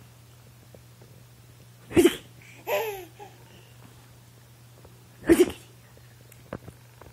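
A baby laughing and vocalising, with a short falling giggle-like cry after the first of two short loud bursts about three seconds apart.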